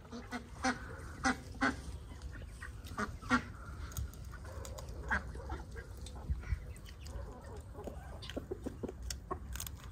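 Domestic fowl calling on and off, with scattered clicks and taps of a spoon and fork on plates.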